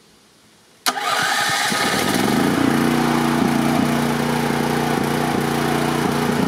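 Electric-start gasoline portable generator (GP-9500EB) starting on choke: the electric starter cranks it about a second in, the engine fires at once and speeds up, then settles into steady running within a couple of seconds.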